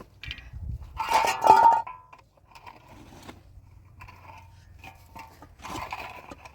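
Metal clattering and scraping as things are handled, with one loud ringing clatter about a second in, followed by quieter knocks and rustles.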